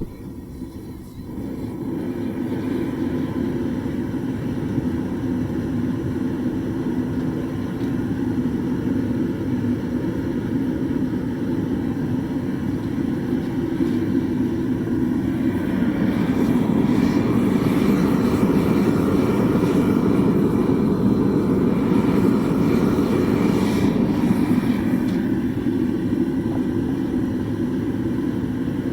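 Homemade melting furnace's burner lighting and then firing with a steady, noisy rush of flame. It grows louder past the middle for several seconds, then eases back a little.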